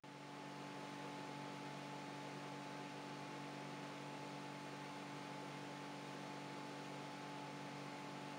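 Faint, steady hum of a few held tones over a low hiss, unchanging throughout.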